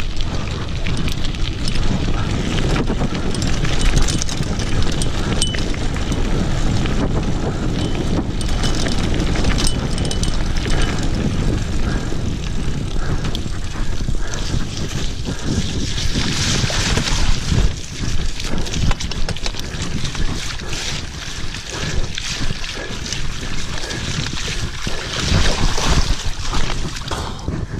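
Wind buffeting the camera microphone over the rumble of mountain bike tyres on a rough dirt and mud track, with frequent sharp clicks and knocks from the bike rattling over the bumps.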